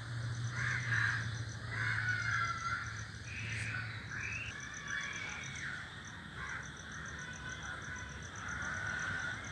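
A group of crows cawing in the tree, one harsh call after another, some overlapping.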